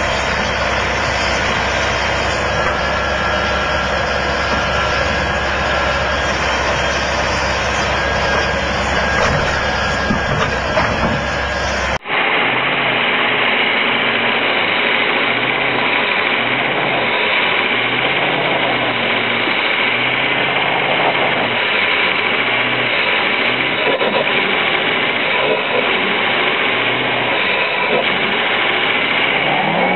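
Diesel engines of an excavator and an articulated dump truck running steadily at an overturned dump truck recovery. About twelve seconds in the sound cuts abruptly to a pickup truck's engine running hard under load, towing a stuck semi-trailer truck, with its tyres spinning in snow.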